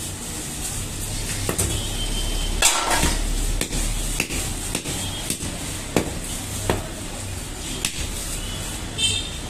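Fish knife striking a wooden log chopping block while a tilapia is cut: a series of irregular sharp knocks, the loudest about three seconds in, over a steady low hum.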